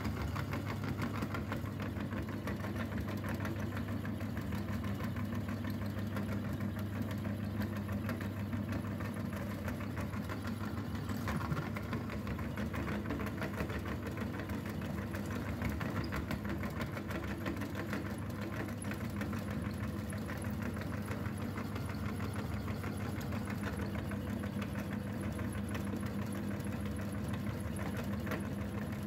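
Motor-driven meat grinder running steadily while grinding chalk: a low motor hum under a fast, dense rattle of chalk being crushed by the auger and forced through the cutting plate, with one louder crack about eleven seconds in.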